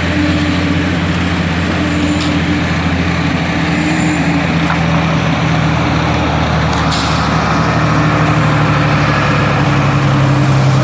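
Heavy diesel engine of a concrete truck running steadily, picking up speed slightly near the end. A short burst of air hiss comes about seven seconds in.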